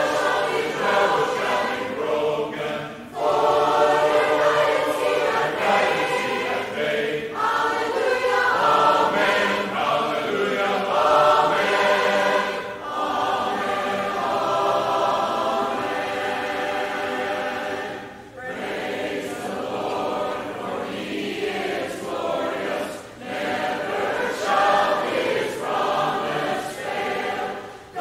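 A church choir singing a hymn a cappella, phrase by phrase with short breaths between lines. It holds a long 'Amen' about halfway through, then breaks off briefly before starting the next verse.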